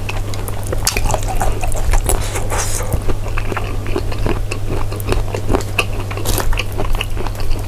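A person chewing a mouthful of snail rice noodles and crisp fried topping close to the microphone, with many short crunches and mouth clicks.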